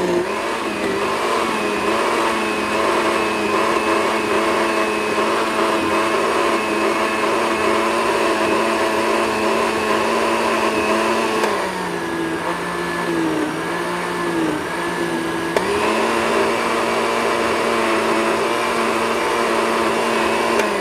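Hamilton Beach 58148A countertop blender running on its puree setting, blending fruit and water: a steady motor whine. Its pitch dips lower for about four seconds midway, then picks back up.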